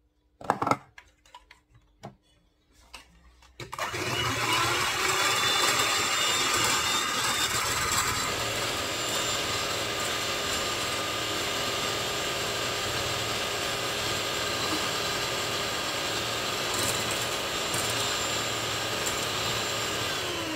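Electric hand mixer switched on after a few light clicks of handling, running with a steady motor whine as its beaters whip cold cream. The pitch climbs briefly as it gets up to speed, and the motor begins to slow just at the end.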